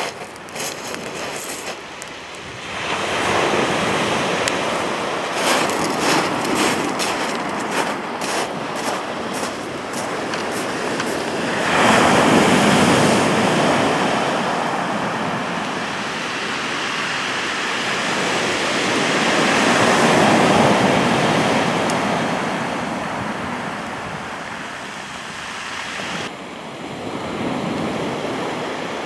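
Sea waves breaking on a shingle beach, the surf swelling loud about every eight seconds and then falling back. In the first ten seconds there is a run of sharp clicks and crackles.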